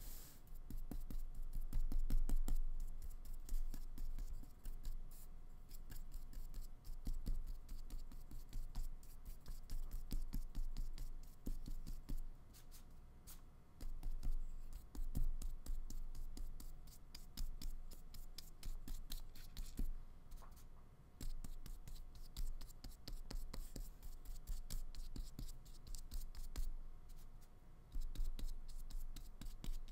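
Flat paintbrush loaded with acrylic paint scrubbing across paper in quick, scratchy back-and-forth strokes, with a few brief pauses.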